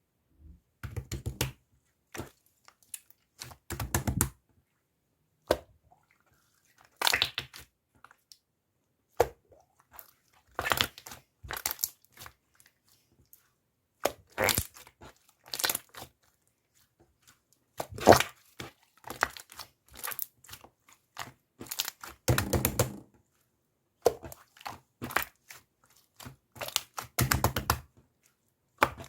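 Close-up crunching and crinkling in short irregular bursts, each a quick run of crackles, with dead-silent gaps between them.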